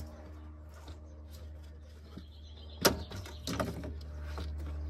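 Plastic clicks and rattles of a BMW E46 door card (the interior door trim panel) being handled and worked at the door, with one sharp click about three seconds in and a few lighter ones after it. A steady low hum runs underneath.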